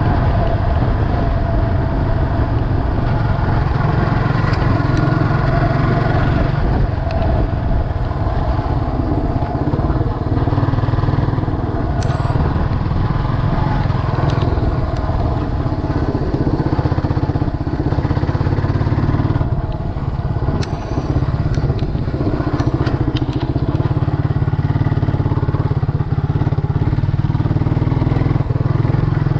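Scrambler motorcycle riding a gravel dirt road: the engine runs steadily under way while the tyres crunch over gravel, with scattered ticks of loose stones. The sound eases briefly about twenty seconds in.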